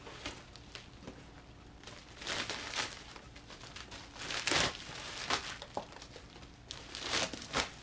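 Cardboard box flaps pulled open, then plastic bubble wrap crinkling and rustling in several bursts as it is pulled off the item inside, loudest about halfway through.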